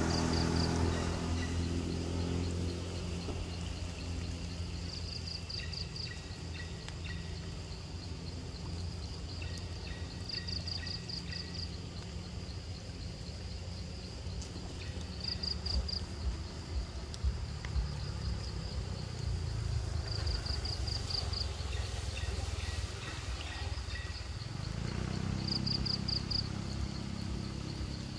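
Outdoor ambience with a high pulsed trill, an insect or frog calling, repeating about every five seconds, over a low engine rumble that is strongest at the start and swells again near the end. A few faint splashes come as the macaque paws at the puddle water.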